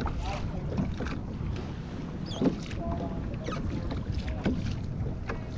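Wind rumbling on the microphone over small waves lapping against a plastic kayak hull, with scattered light clicks of hands handling fishing tackle.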